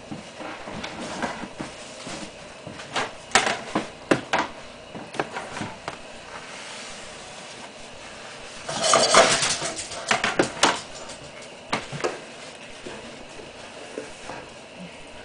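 Kitchen clatter of dishes and utensils being handled: scattered clinks and knocks, with a busier burst of clattering around the middle.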